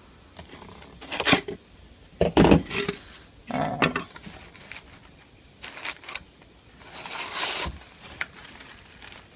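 Handling of a cardboard shipping box with a styrofoam liner: scattered scrapes and knocks as a knife pries the foam lid loose, with a thump about two and a half seconds in. A rustle of cloth near the end as the cloth bag is lifted out.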